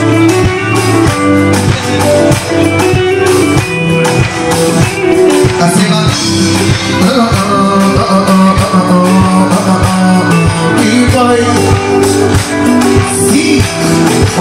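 Band music with guitar over a steady beat, and a singing voice.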